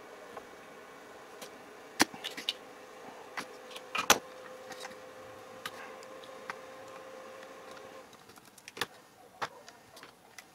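Sharp snapping clicks of a spring-loaded desoldering pump being cocked and fired as the motor solder joints on a CD mechanism's circuit board are sucked clear, the loudest about four seconds in, with a faint steady hum in the middle and small clicks of the board being handled near the end.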